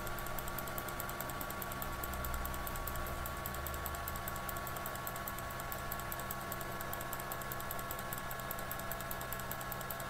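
Steady background hum with several constant tones and a fast, even ticking.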